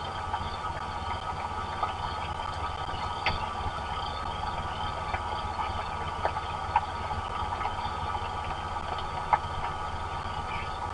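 Steady rain falling, with scattered sharp ticks of drops and a low steady rumble underneath.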